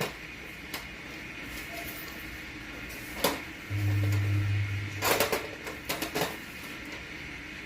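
Metal tools clicking and clinking against engine parts during hand work, with a short run of knocks near the end and a steady low hum lasting about a second midway.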